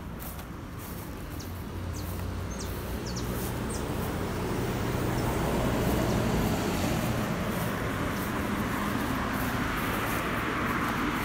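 Road traffic noise that swells as a vehicle passes, loudest about halfway through and staying high, with a few short high bird chirps in the first few seconds.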